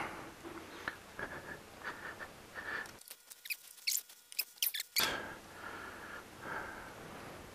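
Handling noise from pulling a dirt bike's rear wheel out and setting it down: scattered light clicks and taps with short squeaks, and a quick run of sharp clicks a few seconds in.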